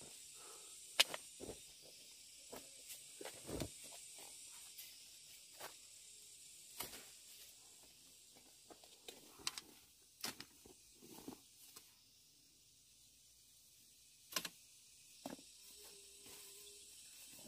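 Scattered light clicks and rustles, irregular and a dozen or so in all, over a faint steady hiss; a brief faint hum sounds near the end.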